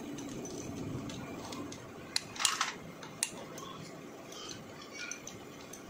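Metal hand tools handled against a motorcycle engine's cylinder head: a few sharp metallic clicks and a short clatter about two to three seconds in, over a faint steady background murmur.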